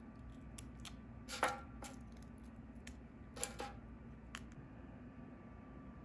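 A few light crunches and taps, the loudest about one and a half seconds in: toasted bread croutons being lifted off a baking tray and dropped into a bowl of bean stew.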